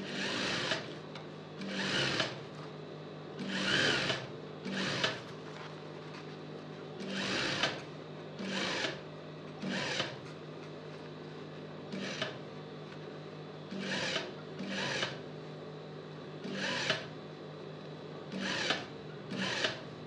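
Industrial lockstitch sewing machine stitching in about a dozen short runs, each under a second, with its motor humming steadily between them, while running a stay stitch along a fabric edge.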